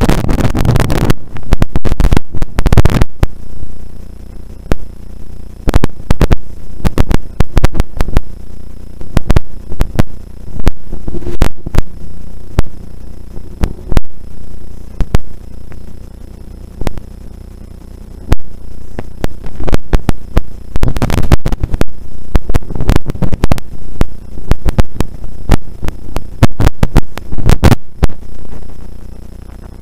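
Rally car at speed on a snowy gravel road, heard through its overloaded onboard camera microphone as a steady low hum broken by loud, irregular crackles and clicks.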